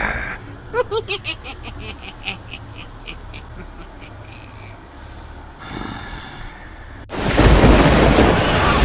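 A man laughing: a quick run of 'ha' pulses that fades away over about two seconds. About seven seconds in, loud heavy-metal-style music cuts in abruptly.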